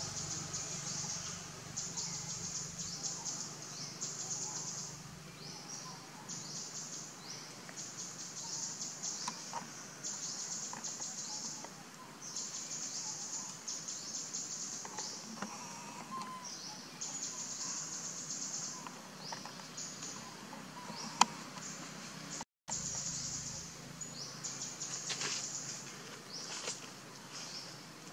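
Outdoor forest ambience: a high-pitched chirring that comes and goes in spells of about a second, with a single sharp click about 21 seconds in.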